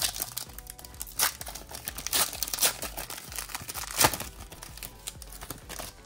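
Plastic wrapper of a Panini Select basketball card pack crinkling and tearing open as the pack is opened by hand. Sharp louder crackles come about a second in, twice around two to two and a half seconds, and once about four seconds in.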